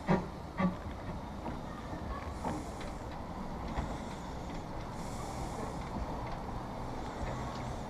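Two-foot-gauge steam locomotive moving slowly, with a steady rumble and soft steam hisses every two to three seconds. Two sharp knocks come in the first second.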